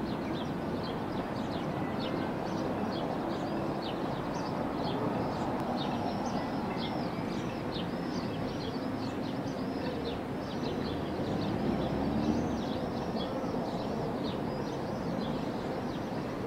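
Many small birds chirping continuously, with quick, closely spaced high calls, over a steady low background din.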